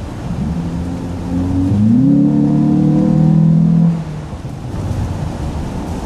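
2011 Acura TSX engine revving up under acceleration, heard from inside the cabin. The pitch climbs twice, holds high and loud, then falls away abruptly about four seconds in. Steady road noise runs underneath.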